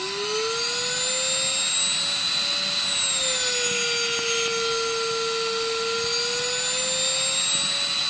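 SilverCrest SHAZ 22.2 C3 cordless stick vacuum's motor running with a steady whine, still rising in pitch as it spins up at the start. About three seconds in, its pitch drops to a lower steady note as ECO mode is switched on, then climbs back to full power a few seconds later.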